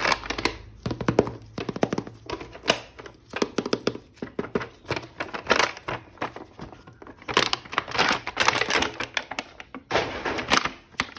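Hands unboxing a plastic-packaged toy action figure: a rapid run of plastic clicks, taps and rustling, busiest about three to six seconds in and again about seven to nine seconds in.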